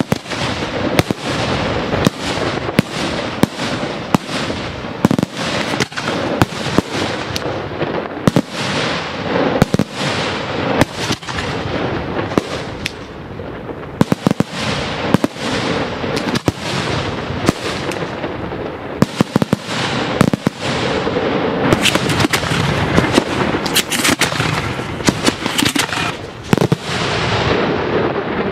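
Daytime aerial fireworks bursting overhead in a dense barrage: loud sharp bangs, often several a second, over a steady crackle, each burst leaving a dark smoke puff.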